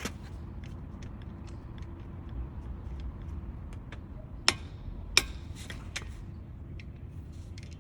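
Scattered light metallic clicks and taps of a wrench on the brake caliper bolts, with two sharp, louder clinks about four and a half and five seconds in, over a low steady hum.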